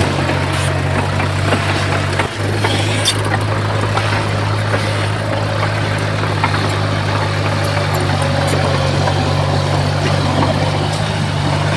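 Heavy earthmoving machine's engine running steadily with a low hum, with scattered clicks and rattles over it. The hum dips briefly about two seconds in.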